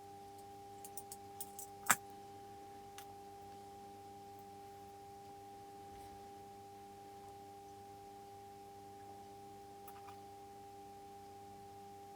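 A steady low hum made of several held tones, with a few faint clicks and one sharper click about two seconds in.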